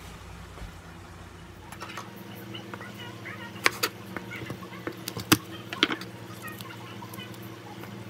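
Kitchen knife chopping garlic cloves on a wooden cutting board: a few sharp, irregular knocks over a steady low hum.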